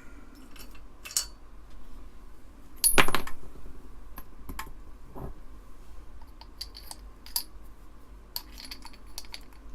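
Small metal parts clinking and tapping as a hot desoldering tool's tip is swapped for another, with one louder clink about three seconds in and a run of small ticks near the end.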